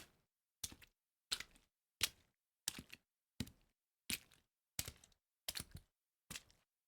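A foley sound effect: a steady series of short, sharp hits, about ten of them, roughly one every 0.7 seconds, each with a small double hit, separated by silence.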